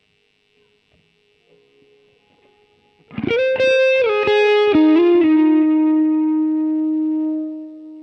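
Kiesel FG2 electric guitar played through a HeadRush Pedalboard effects processor and recorded direct, with no band or vocals. Faint hiss and light string noise come first. About three seconds in a loud lead phrase starts: a few quick notes that settle into one long sustained note, which fades near the end.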